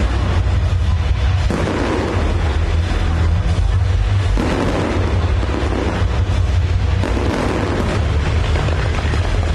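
Large fireworks display: a continuous, dense rumble of shell bursts and crackle, loud and steady, with no single bang standing out on its own.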